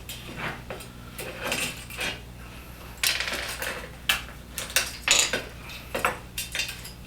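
Small clicks, clinks and a short scrape of a vertical blind track's parts being handled as the end cap is taken off and the end control slid partway out to expose the sprocket.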